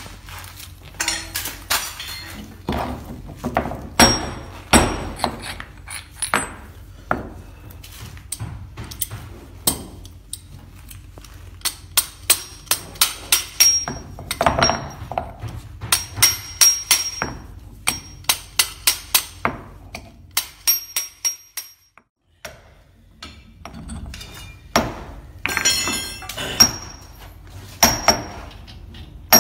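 Steel parts of a puffed-corn snack extruder (screw and barrel pieces) being hammered and knocked apart by hand: many sharp metal clanks and blows with a ringing note, coming irregularly and often in quick runs, with a short pause a little past two-thirds through.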